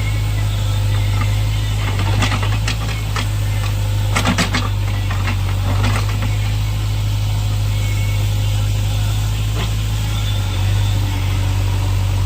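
JCB backhoe loader's diesel engine running steadily, with a few sharp metallic knocks and rattles about two seconds in and a quick cluster of them about four seconds in.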